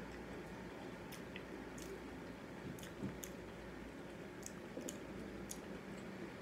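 Close-up chewing of crunchy oat-cluster cereal: steady mouth sounds with a dozen or so small, sharp crunches and crackles scattered through.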